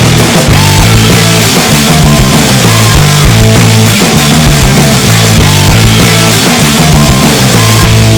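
Loud, distorted hard rock music with electric guitars and a driving beat, ending in a held guitar chord that fades out.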